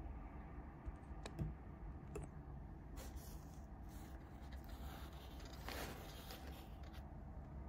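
Faint crinkling of a sandwich's paper wrapper and light handling clicks as the sandwich is moved about over it; a few clicks come in the first two seconds, and the crinkling is densest about six seconds in.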